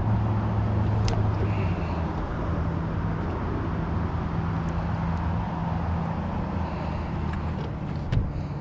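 A motor engine running steadily at low speed, its pitch stepping up slightly about two seconds in and dropping back near the end.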